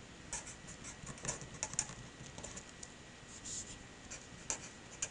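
Felt-tip marker writing on paper: a string of short, irregular scratchy strokes as letters are drawn.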